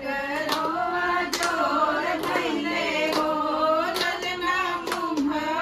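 A group of women singing a devotional song together, with hand claps keeping time roughly once a second.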